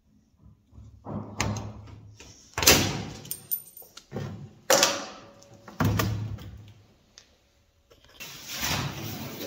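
Stainless-steel sheet being handled and worked: a series of sharp metallic clanks, one leaving a brief ringing tone, then a longer rattling scrape near the end.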